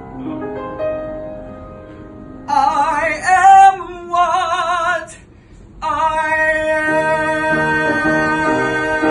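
A male singer holds long belted notes with wide vibrato over piano accompaniment, marking the close of a show-tune medley. Soft piano chords open the passage. About two and a half seconds in a loud vibrato note comes in and breaks off shortly before the five-second mark, and about a second later a long held note begins over moving piano chords.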